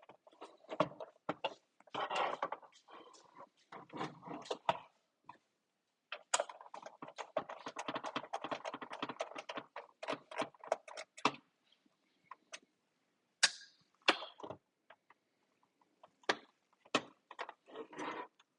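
Hard plastic parts and small metal pieces clicking, knocking and rattling as they are handled during disassembly of a Nerf blaster. A dense run of quick clicks comes in the middle, with scattered knocks before and after.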